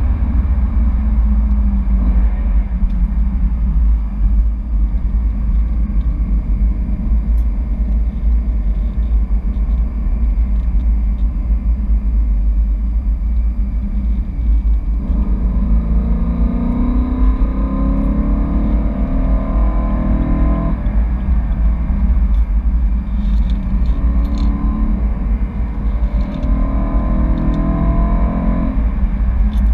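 BMW E92 M3's V8 engine heard from inside the cabin over a steady heavy rumble of road and wind noise. About halfway through it accelerates, rising in pitch and dropping back several times as it shifts up through the gears, and it does so again near the end.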